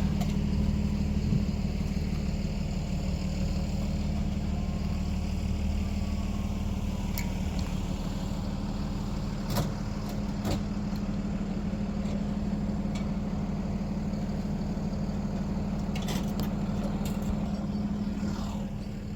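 Crane engine running steadily under load as a rooftop HVAC unit is hoisted, a constant low hum. A few short sharp clicks sound about halfway through and again near the end.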